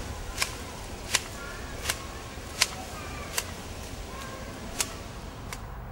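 Hand hedge shears snipping a hedge: a series of sharp clicks, about one every three-quarters of a second, with a longer pause a little after the middle.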